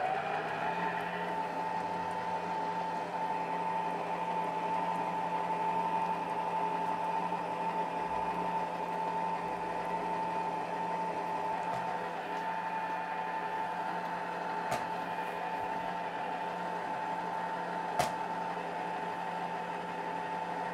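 STARWIND SPM5185 stand mixer running, its flat beater creaming soft butter with honey in a steel bowl. The motor's whine rises as it spins up at the start, then holds one steady pitch. A single sharp click sounds near the end.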